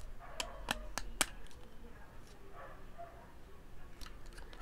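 Sharp plastic clicks and taps from a Transformers G1 Conehead toy jet being turned over in the hands: four quick ones in the first second or so and one more near the end.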